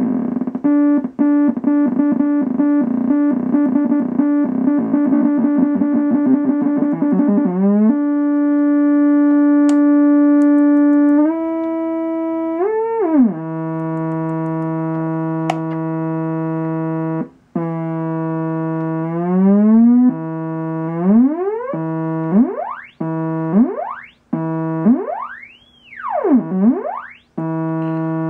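Moog Werkstatt-01 monophonic analog synthesizer playing one buzzy tone. For the first eight seconds it pulses rapidly, then it holds notes that step and glide in pitch, and in the second half it sweeps up and down again and again, one sweep rising very high and falling back near the end.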